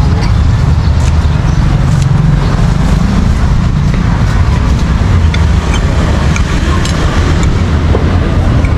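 Steady street traffic noise: a continuous low rumble of passing motor vehicles, with a few faint clicks over it.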